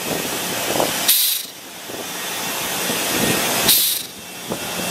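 Pneumatic control valve positioner venting air from its actuator in two short hissing bursts, about a second in and near the end. Each burst comes as the milliamp signal is stepped down and the valve strokes down. A steady fainter air hiss runs underneath.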